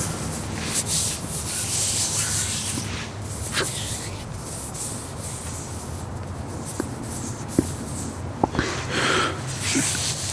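Hands rubbing together: dry skin swishing in repeated strokes. It is strongest in the first couple of seconds, softer in the middle, and picks up again near the end with a few small clicks.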